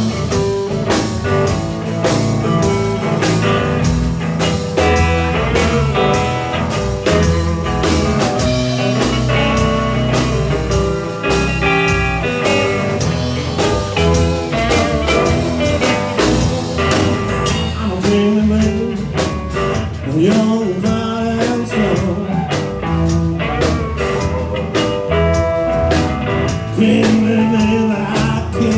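Live band playing a blues number on electric guitar and drum kit, with steady drum hits under sustained guitar notes.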